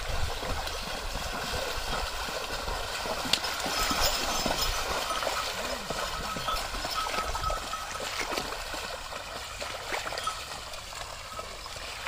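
Muddy water sloshing and splashing steadily as a bullock-drawn wooden leveling board is dragged through a flooded field, churned by the board and the bullocks' hooves.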